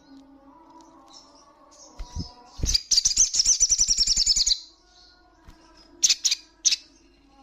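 Olive-backed sunbird calling: a couple of low thuds, then a fast high trill of about a dozen notes a second lasting nearly two seconds, and three sharp chirps near the end.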